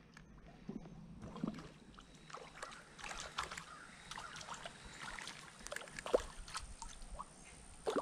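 Faint small splashes and sloshing of creek water, with scattered irregular clicks and rustles.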